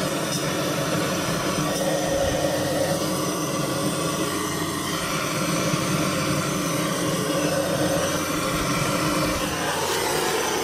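Handheld gas torch on a canister burning with a steady rushing jet of flame, held to wax fire lighters among lump charcoal to light them.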